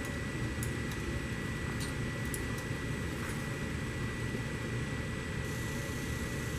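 Steady low hum and hiss of running machinery, with a thin, constant high whine. A few faint light metal clicks in the first half as an open-end wrench works the nuts on a wiper basket's top plate.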